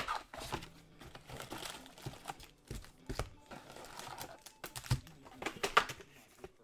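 Trading-card packs and cards being handled: irregular wrapper crinkling with quick clicks and rustles, sharpest right at the start and again about six seconds in.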